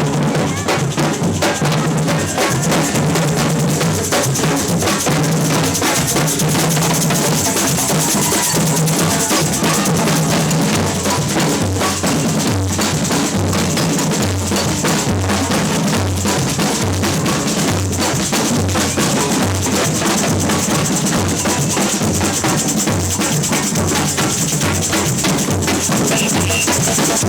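Samba percussion band playing a steady, driving groove: low bass drums alternate between two pitches under dense snare and rattling percussion.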